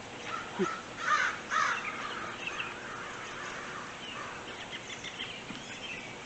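A large flock of American crows calling from a tree: many short overlapping caws, loudest between about one and two seconds in, then thinning to scattered calls.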